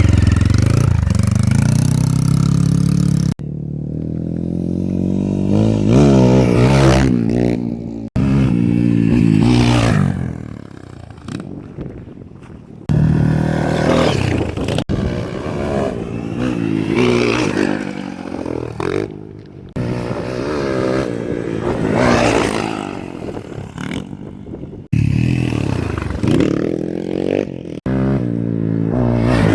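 Motocross dirt bike engines revving, the pitch climbing and dropping again and again as the throttle is worked, in a string of short clips that cut off abruptly every few seconds.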